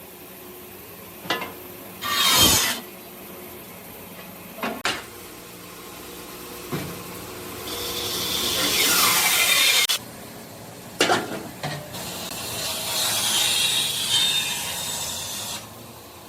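Hand work on steel in a fabrication shop: long rasping, scraping strokes with a few sharp knocks between them.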